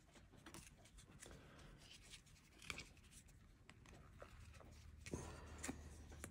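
Faint rustle and light flicks of Topps baseball trading cards being handled and slid through a stack by hand, with a few sharper card snaps around the middle and near the end.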